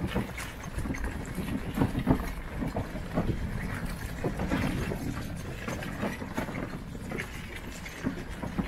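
Bicycle riding over a rough track: a steady low rumble with frequent irregular knocks and rattles as the bike jolts over bumps.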